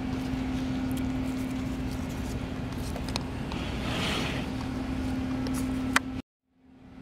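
Steady room noise with a constant low hum, such as from a fan or air conditioning, and a few light clicks of plates and toothpick skewers being handled. The sound cuts out abruptly near the end, then fades back in.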